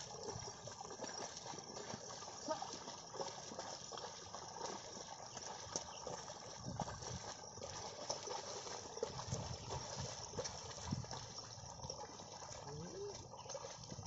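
Irregular sloshing and splashing of water and mud as a pair of bullocks wade through a flooded paddy field, dragging a wooden levelling board through the mud.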